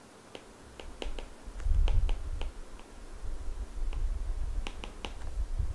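Stylus tapping and scraping on a tablet screen while handwriting is written, heard as a scatter of light clicks. A low rumble comes in underneath about one and a half seconds in.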